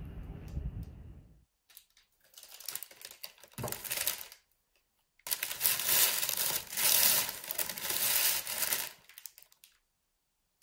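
Crackling, crinkling handling noise in two stretches, the second longer and louder. Before it, a low background rumble cuts off about a second and a half in.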